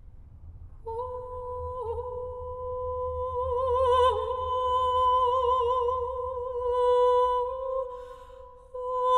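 Unaccompanied mezzo-soprano voice holding one long note that enters about a second in, dips slightly in pitch twice and takes on a wider vibrato in the middle; a fresh note begins near the end.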